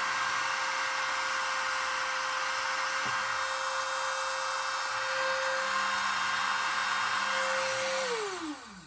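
Dremel rotary tool running at a steady high speed as it cuts into the base of an old glass vacuum tube, a steady whine over a gritty hiss. About eight seconds in it is switched off and its pitch falls away as it spins down.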